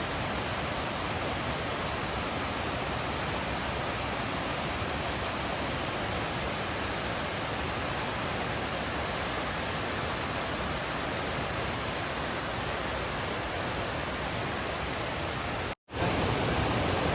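MacKenzie Falls' steady rushing roar of falling water. It cuts out for an instant near the end and comes back a little louder.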